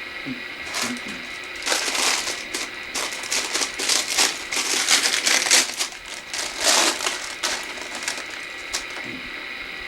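Take-out paper wrapper or bag crinkling and rustling as it is handled, in irregular bursts, loudest near the middle and fading out about a second before the end.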